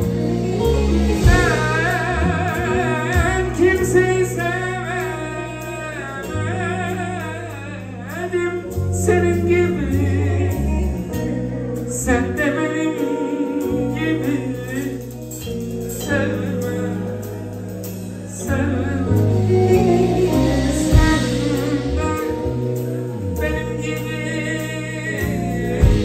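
Live band playing a Turkish folk song: a man singing a wavering, ornamented melody over keyboard, drum kit and electric guitar.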